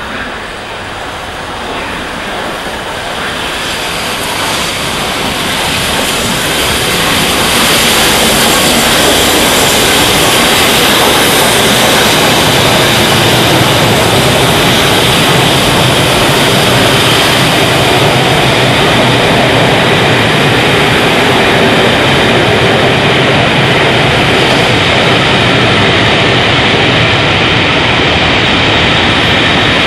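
Steam-hauled passenger train, LNER A1 Pacific 60163 Tornado and its coaches, passing through a station: a rushing rumble of locomotive and carriages on the rails that builds up over the first several seconds as the train draws near, then holds steady and loud as the coaches go by.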